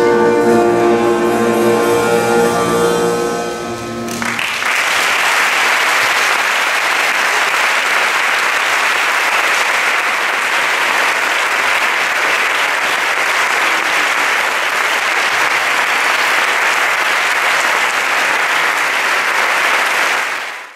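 A clarinet ensemble with piano and drums holds a final chord, which cuts off about four seconds in. Steady audience applause follows and fades out at the end.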